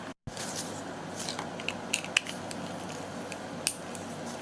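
Small clicks and light scrapes of small plastic toy parts being handled, likely while a screwdriver opens the battery case, with one sharper click about three and a half seconds in. The sound drops out completely for a moment just after the start.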